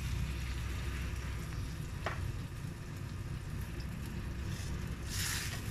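Pot of mung bean stew simmering on a stove over a steady low hum. There is a short click about two seconds in, and a ladle stirs through the pot near the end.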